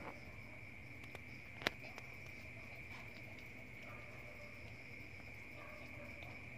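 Insects trilling steadily on one high note, like crickets at night, with a single sharp click about a second and a half in.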